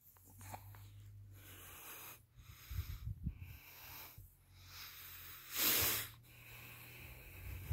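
Gusts of rushing air noise on the phone's microphone, coming and going every second or so, the loudest just before six seconds in, over a faint steady low hum.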